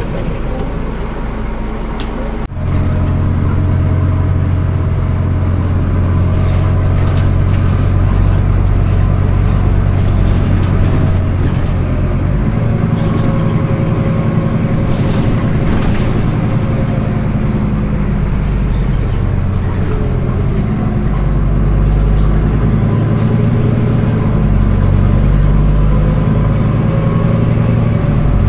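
Scania N320UB city bus's diesel engine heard from inside the bus, pulling hard from about two and a half seconds in as the bus gets under way. The engine note changes a couple of times as the ZF automatic gearbox shifts.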